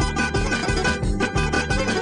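Instrumental music led by plucked strings over a steady bass rhythm.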